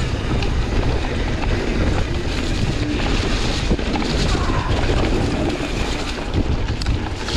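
Mountain bike riding fast down a dirt forest trail: wind buffeting the microphone over steady tyre noise, with scattered clicks and knocks as the bike rattles over rough ground.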